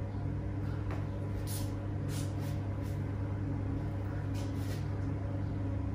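A steady low mechanical hum of room tone, with a few faint soft ticks and rustles.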